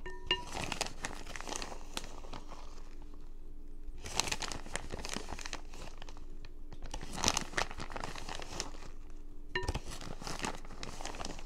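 Plastic bag of Velveeta shredded cheese crinkling in several spells with short pauses between them, as the shreds are shaken out into a measuring cup.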